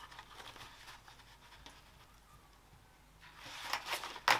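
Fabric rustling and sliding as two clipped layers are handled and lifted, with a sharp click near the end.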